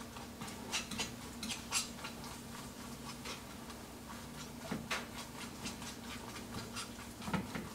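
Faint scattered clicks and light taps of cooking utensils on a pan, over a low steady hum.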